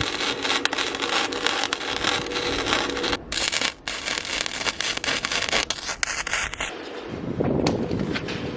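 Flux-core wire-feed welder arc crackling as an overhead weld is laid, with a short break about three seconds in. The arc stops near the end.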